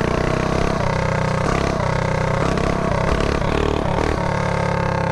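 Mini bike's small single-cylinder engine running under way, its note dipping and rising a few times as the throttle changes.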